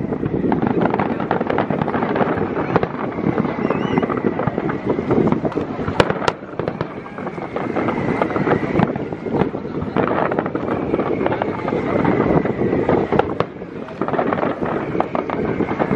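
Large fireworks display: a dense, unbroken run of overlapping cracks and pops from many bursting shells, with one especially sharp bang about six seconds in.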